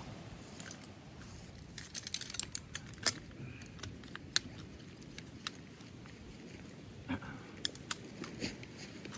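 Camp cooking gear being unpacked and handled: irregular sharp clicks and light clinks, bunched about two seconds in and again near the end, over a low steady rumble.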